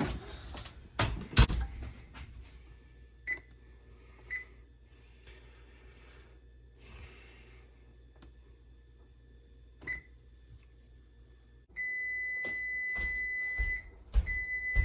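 A few knocks and clatters, then about twelve seconds in an oven's electronic beeper sounds: one steady high tone held for about two seconds, a short break, then the same tone again.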